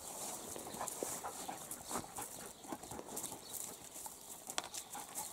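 A big black dog and a black puppy moving about together on dry ground, with a few short scuffs and clicks scattered through.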